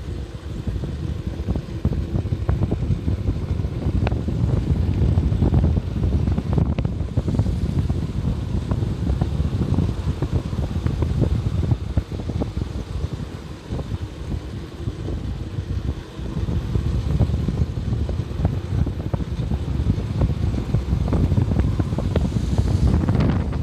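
Vehicle driving along a mountain road: a steady low rumble of road and wind noise buffeting the microphone, with scattered small knocks.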